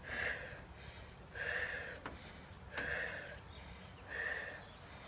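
A woman breathing hard during split-squat reps: four forceful breaths, about one every second and a half, with two short clicks near the middle.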